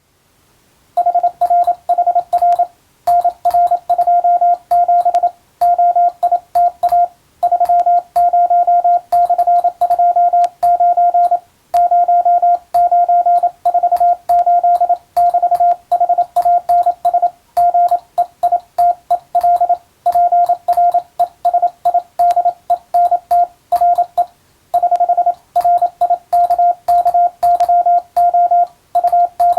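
Morse code CW tone, a single steady pitch near 700 Hz, keyed on and off in fast dots and dashes with brief pauses between groups. It is telegraphy receiving practice, starting about a second in.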